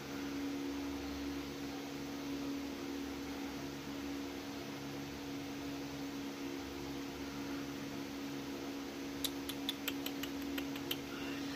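Steady machine hum, like a small fan or motor running, with a quick run of about eight light clicks about nine seconds in.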